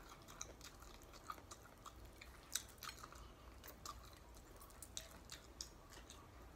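Faint, close chewing of fried chicken: scattered soft clicks and mouth sounds, one a little louder about two and a half seconds in.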